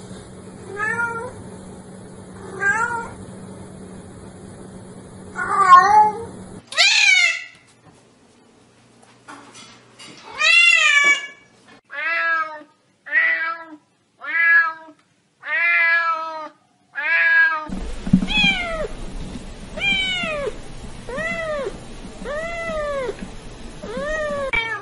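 Domestic cats meowing over several short clips. First come a few spaced meows, then a quick string of about seven short meows, roughly one a second. Near the end there is a series of meows that fall in pitch, about one every second and a bit.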